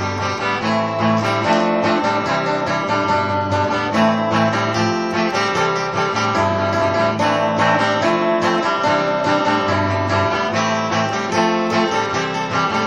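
Guitar music playing steadily, with many notes sounding one after another.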